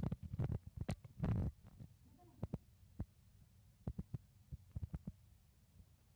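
Crackling and clicking as monkeys handle, break open and chew Manila tamarind pods: a dense patch of rustling crackle in the first second and a half, then scattered single sharp clicks.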